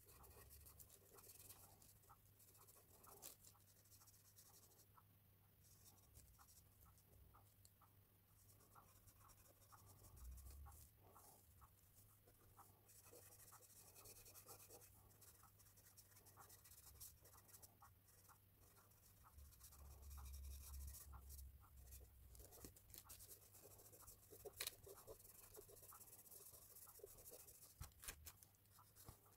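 Faint scratching of carbon pencil and compressed charcoal on hot-pressed paper, with soft rubbing as fingers blend the shading and a few soft bumps against the drawing board, over a low steady hum.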